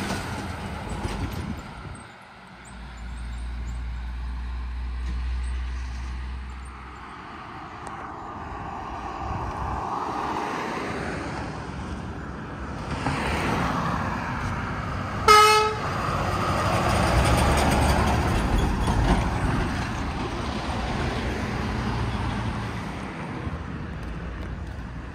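A semi truck driving past and away with a low engine drone, followed by other traffic going by. About 15 seconds in, a short, sharp horn toot is the loudest sound.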